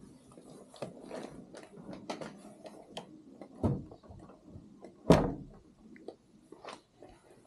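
Large Tibetan-Buddhist prayer wheel being turned by hand in its wooden frame, giving irregular wooden knocks and clicks, with one loud thud about five seconds in.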